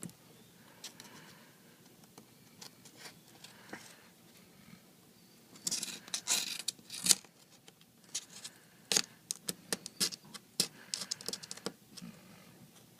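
Small hand tools scraping and clicking against an iPad 3's frame while clearing off old adhesive. A scratchy scraping stretch comes about halfway through, followed by a run of short, sharp clicks.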